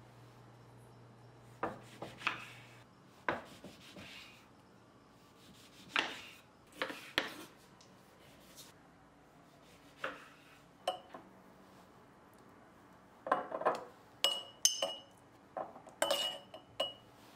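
Kitchen prep sounds: a knife cutting lemon on a wooden cutting board, heard as scattered short knocks and taps. Near the end, lemon slices and ginger go into a glass jar, with a few short glass clinks that ring briefly.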